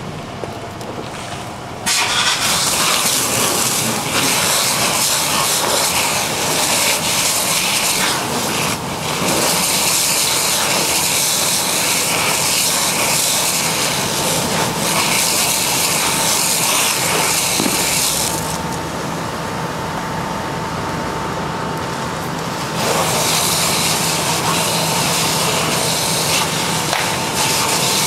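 Fire hose spraying water onto a burning car: a loud steady hiss of water spray and steam that starts about two seconds in. It dips briefly about a third of the way through and eases for about four seconds past the middle before picking up again, over a steady engine hum.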